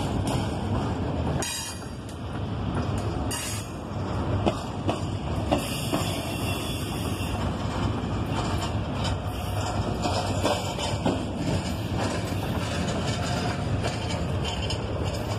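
Double-stack intermodal well cars rolling past: a steady low rumble of steel wheels on rail, broken by scattered sharp clacks as the wheels cross the rail joints.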